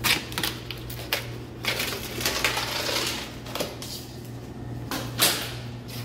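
Weatherstrip being pulled out of a door jamb: an irregular run of scrapes, clicks and snaps, the sharpest about five seconds in, over a steady low hum.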